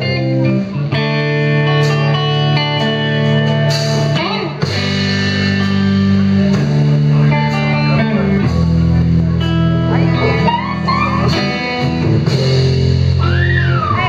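Live amplified rock band playing: electric guitar chords over bass and a drum kit with cymbal hits, with a few bending notes near the end.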